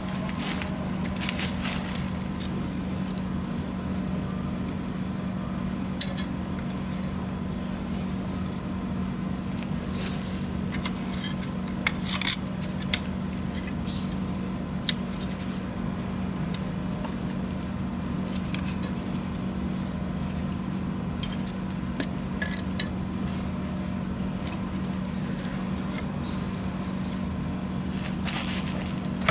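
Wood bonfire crackling: irregular sharp snaps and pops, a few louder ones near the middle, over a steady low hum.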